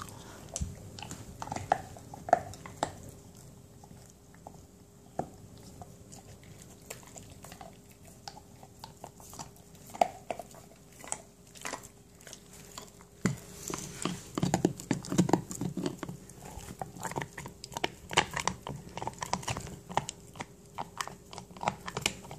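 A dog gnawing an elk antler chew: irregular clicks and scrapes of teeth on the antler. The gnawing gets busier about halfway through.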